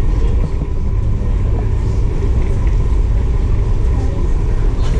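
Steady low rumble of a ferry under way, with a faint constant hum above it.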